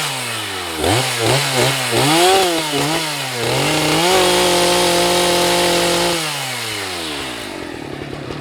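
Husqvarna 181 SE two-stroke chainsaw revved: the revs drop, the throttle is blipped about five times in quick succession, held high for about two seconds, then released so the saw winds down to idle near the end.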